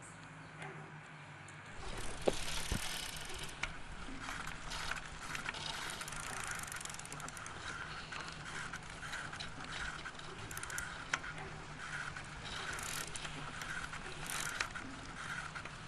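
Bicycle being ridden: its chain and freewheel ticking and rattling steadily, starting about two seconds in.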